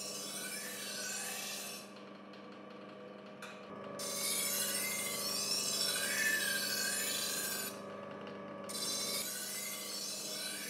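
Knife blade held in a sharpening jig and drawn across a spinning abrasive wheel, over the steady hum of the lathe's electric motor. There are three grinding passes: one ending about two seconds in, a louder one from about four to eight seconds, and another starting near nine seconds.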